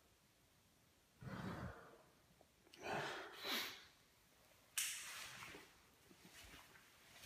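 A man's heavy, ragged breathing: a few quiet breaths in and out, then a sharp, sudden gasp about five seconds in.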